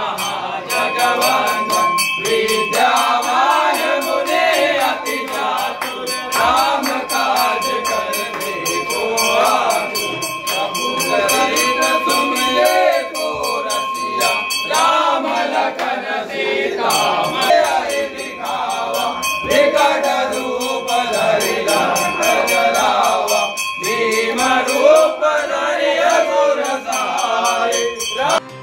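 Devotional song: voices singing a wavering melody in phrases of a few seconds over a steady held drone, with a regular percussion beat.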